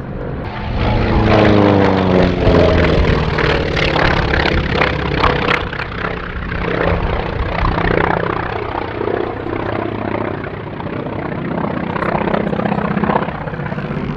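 Grumman Wildcat fighter's radial piston engine in display flight: the engine note drops in pitch as it passes, about a second in. It then carries on as a steady propeller drone that swells and eases as the fighter manoeuvres.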